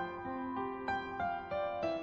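Slow instrumental background music, with a new sustained note starting about every third of a second.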